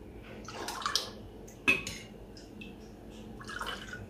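Milky sharbat poured from a container into a tall glass over ice, in two soft splashy pours, with a sharp clink of ice or glass between them.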